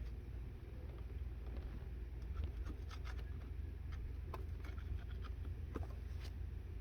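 Scattered light clicks and small rattles of hand tools being rummaged through in a soft tool bag, over a steady low rumble.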